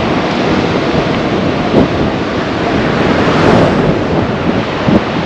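Loud, steady rushing of a fast mountain river, with wind buffeting the microphone.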